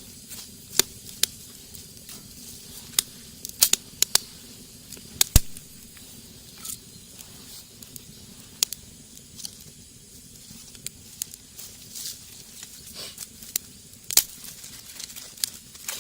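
Wood fire burning in a rocket stove: irregular sharp pops and crackles over a steady hiss, the loudest pop about five seconds in.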